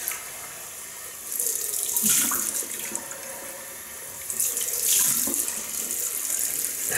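Cold water running from a bathroom tap into a sink as the face is rinsed after shaving. The water noise swells twice, about a second in and again from about four and a half seconds, as water is splashed.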